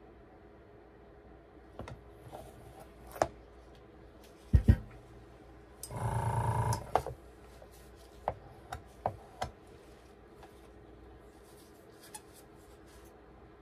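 Handling noises from setting down a paint cup and laying out a palette knife: a few light clicks and knocks, two heavy thumps about four and a half seconds in, and a rough scraping buzz lasting about a second around six seconds in, followed by more scattered clicks.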